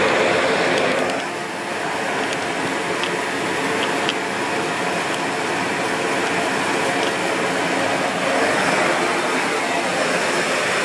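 Dyson Big Ball Animal (CY23) cylinder vacuum cleaner running steadily with the dusting brush on the hose, sucking air while dusting, with a few faint clicks a few seconds in.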